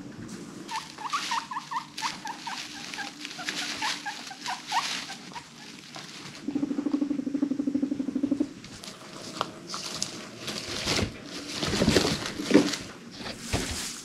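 Guinea pigs: a run of short, quick squeaks, then a low, rapidly pulsing rumbling purr lasting about two seconds. This is followed by scuffling and rustling of movement on the bedding, loudest near the end.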